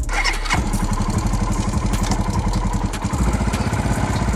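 An engine running steadily with a rapid, even firing rhythm, starting about half a second in.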